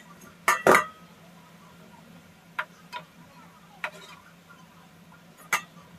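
A metal slotted spoon knocking and clinking against the frying pan as it stirs sev frying in hot oil: a quick cluster of sharp clinks in the first second, then single ones every second or so, over a faint steady sizzle.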